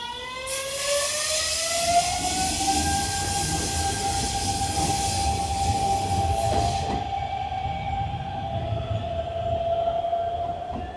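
Hanshin electric train accelerating, its motors whining in a tone that climbs in pitch over the first few seconds and then holds steady, with a loud rush of running noise that stops about seven seconds in.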